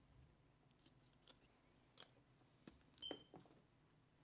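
Near silence: faint room tone with a few scattered soft clicks and a brief faint beep about three seconds in.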